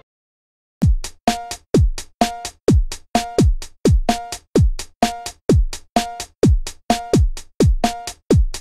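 Electronic drum-machine beat in background music: a kick drum with a falling pitch about twice a second, with a short synth blip on every other kick. It starts just under a second in, after a brief silence.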